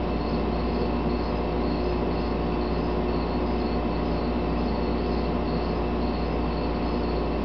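Male phantasmal poison frog (Epipedobates anthonyi, Salvias tricolor) calling: short high notes repeating about twice a second, faint over a steady low hum.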